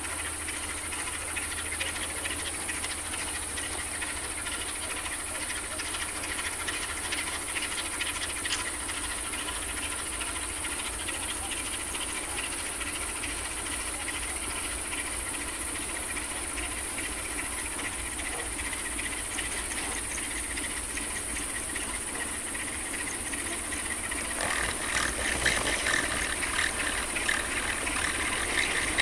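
Night ambience by a railway: a steady high chorus of insects such as crickets with a constant hiss and a faint steady hum. About five seconds before the end a louder crackling rattle comes in.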